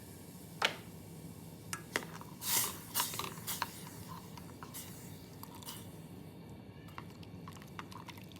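Kitchen handling of wet food ingredients: a scattering of sharp clicks, taps and squishy sounds, loudest about half a second in and again between two and four seconds in, over a steady low hum.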